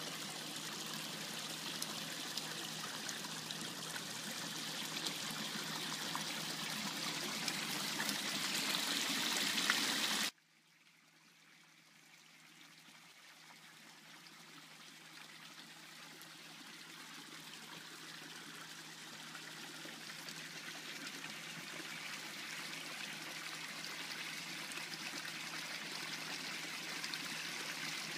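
Water pouring from PVC pipe outlets into a koi pond and splashing on the surface, a steady rush. It drops away suddenly about ten seconds in, then slowly grows back to full strength.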